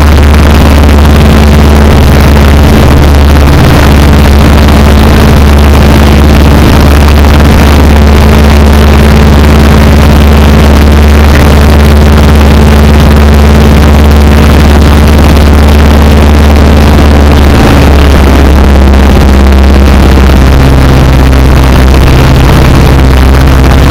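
Piper Super Cub's engine and propeller heard from inside the cockpit: a loud, steady drone that overloads the microphone. Its note shifts slightly about 18 seconds in and again a few seconds later.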